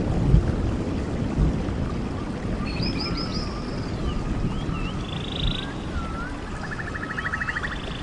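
Steady rain with a low rumble, and from about three seconds in, wildlife calls over it: quick high chirps, whistled swooping notes and a rapid trill of about a dozen pulses a second near the end.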